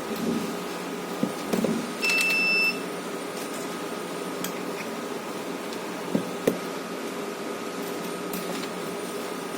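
A single electronic beep, one steady high tone lasting about half a second, about two seconds in, with a few light clicks of handling before and after it over a steady hum.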